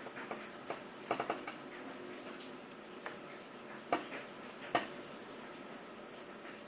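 Light clicks and taps of small hand tools and parts being handled on a computer case panel: a quick run of clicks about a second in, then single sharper clicks spaced about a second apart.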